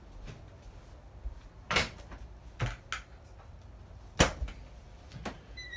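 Cabinet doors and drawers under a sink being opened and shut: about five sharp knocks and clicks, loudest about four seconds in, with a brief high squeak near the end.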